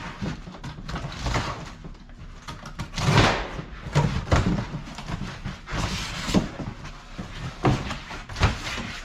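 Cardboard box being cut up and handled: irregular scraping, rustling and knocking of cardboard.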